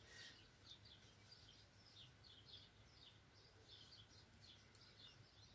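Near silence: quiet room tone with faint, short, high chirps repeating throughout.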